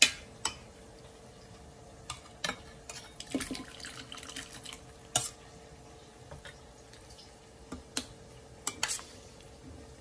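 A metal spoon clinking and knocking against a stainless steel saucepan and bowl as soup is dished out, in a dozen or so scattered sharp knocks with soft sloshing of liquid between them.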